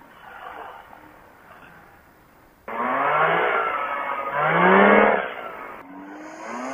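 Quicksilver ultralight's engine running hard through its takeoff roll on grass. It comes in suddenly about two and a half seconds in, after a quieter stretch, and its pitch rises and falls several times.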